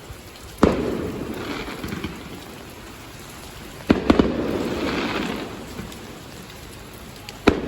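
Fireworks bursting: four sharp bangs, one about a second in, two close together in the middle and one near the end. Each is followed by a second or two of crackling and rumbling echo that fades away.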